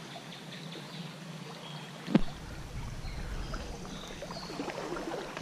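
Shallow creek riffle running over stones, with one sharp knock about two seconds in. Water sloshes around wading legs after it as the angler moves upstream.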